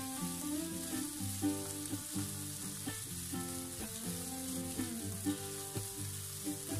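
Fried rice with vegetables and shrimp sizzling in a nonstick frying pan while it is stirred and turned with a silicone spatula. Background music with a melody of held notes plays throughout.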